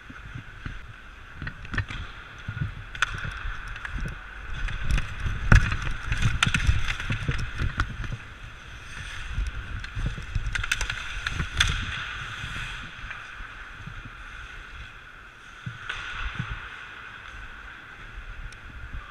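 Ice hockey skate blades scraping and carving the ice in strides, with sharp clacks of a hockey stick on the puck and ice, heard close up from a camera worn by the skater. The swishing comes and goes, loudest a third of the way in and again about halfway through.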